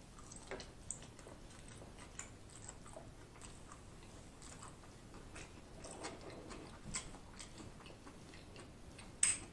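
A person chewing a mouthful of chow mein noodles: faint, soft mouth clicks and smacks, with one sharper click near the end.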